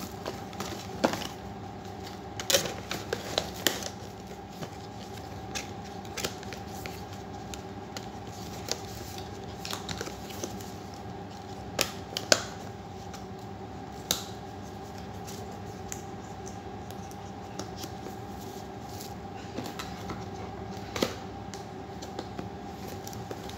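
Small cardboard product boxes handled on a tabletop: scattered taps, knocks and light scrapes, a few louder knocks now and then. A faint steady hum sits underneath.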